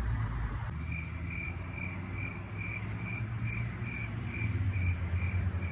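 A cricket chirping in a steady rhythm, about two short chirps a second, starting abruptly about a second in, over a low steady hum.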